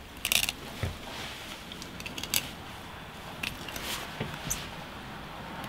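Knife blade clicking and crunching as it cuts along a walleye's rib bones while separating the fillet: a run of small, sharp, irregular snaps.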